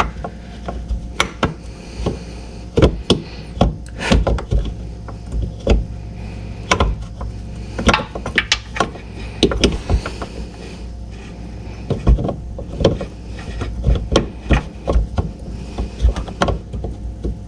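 Irregular clicks, taps and rubbing of hands working a fog light bulb into its housing behind a car's front bumper, over a steady low hum.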